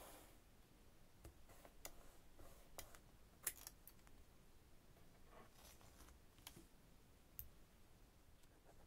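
Faint, scattered clicks and taps of washi tape and scissors being handled over a paper journal page, with one sharper click about three and a half seconds in.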